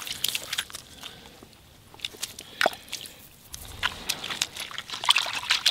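Footsteps crunching and squishing on wet creek gravel and mud: a string of irregular clicks and crunches, busiest about five seconds in.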